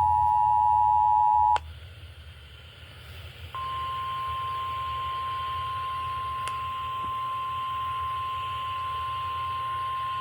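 Emergency Alert System two-tone attention signal sounding steadily, then cutting off about one and a half seconds in. After a couple of seconds of low hum, a single steady weather-alert tone starts about three and a half seconds in and holds, announcing the severe thunderstorm warning.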